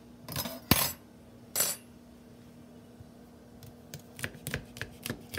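Asparagus spears being shifted about on a plastic cutting board, with one sharp knock, the loudest sound, near the start. From about three and a half seconds in, a knife slices through the spears near the tips, making a quick run of crisp clicks on the board.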